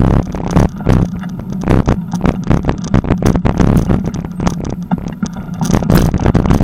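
Wind rumbling on the microphone of a camera riding along on a moving bicycle, with frequent rattles and knocks as the bicycle rolls over a rough dirt path and bumps across railway tracks.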